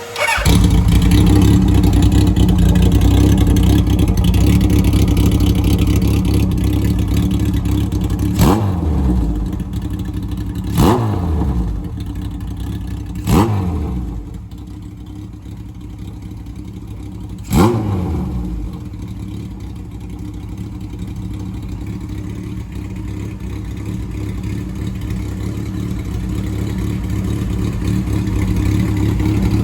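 Kawasaki KZ1000's air-cooled inline-four running through short pipes with inner silencers: a steady idle broken by four quick throttle blips, each revving up and dropping straight back, and getting louder near the end.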